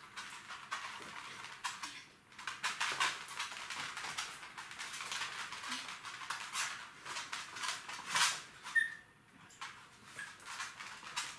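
Two Jack Russell terriers tussling over a toy, their claws clicking and scrabbling on a hard floor in quick, irregular bursts. A short high squeak comes near the end.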